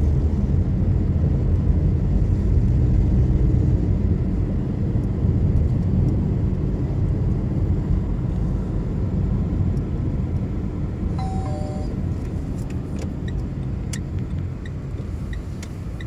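Steady low road and engine rumble inside a moving car's cabin, easing a little toward the end. A brief short tone sounds about eleven seconds in, and a few light clicks follow.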